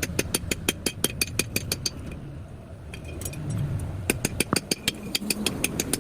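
Blacksmith's hammer striking hot metal on an anvil in quick ringing blows, several a second, in two runs with a pause of about two seconds between, over a low rumble.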